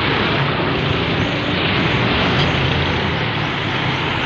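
Steady street traffic noise, vehicle engines running and passing with a constant hum.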